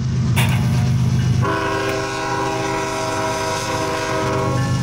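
Canadian National diesel freight locomotive rumbling past at a grade crossing. About a second and a half in, its air horn sounds one long steady chord that cuts off just before the end.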